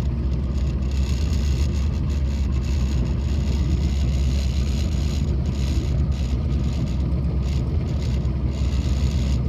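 A steady low rumble with an uneven hiss above it, unchanging throughout, heard from a small boat on a choppy river.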